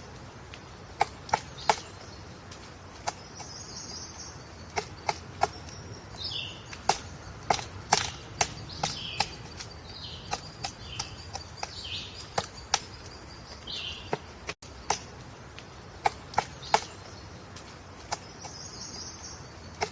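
Woodpecker pecking at wood while excavating its nest hole: irregular single sharp taps, sometimes two or three close together, with high chirping bird calls in between.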